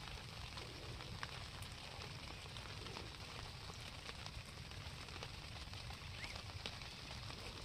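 Light rain falling on a pond and the grass around it: a faint, steady hiss with scattered drop ticks.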